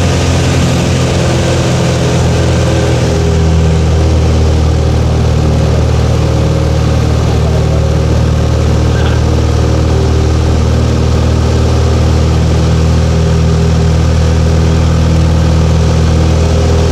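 Cessna 172's piston engine and propeller droning steadily in flight, heard from inside the cabin: a loud, even drone made of several steady tones over a rushing hiss.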